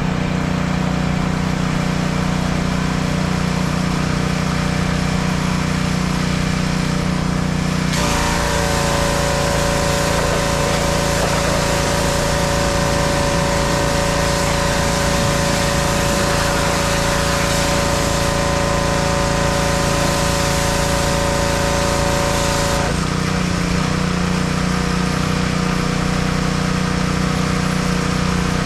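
Small gasoline engine of a pressure washer running steadily. From about eight seconds in until about twenty-three seconds, a hiss of high-pressure spray joins it and the engine's note changes as it takes the load, then it settles back to its earlier note.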